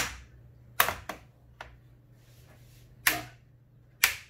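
Plastic retaining clips on an MSI GE75 laptop's bottom cover snapping loose as the cover is pried open with plastic opening tools. About six sharp clicks at uneven intervals, the loudest at the very start, just under a second in, about three seconds in and near the end.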